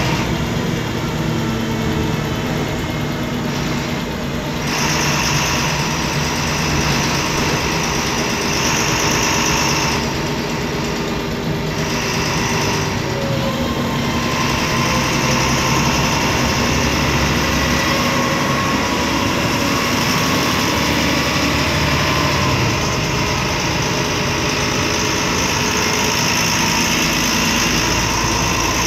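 MAN D0826LOH six-cylinder diesel engine of a MAN Lion's Classic city bus running, heard from inside the passenger cabin as a steady, loud drone. A high hiss comes and goes several times in the first half, then holds.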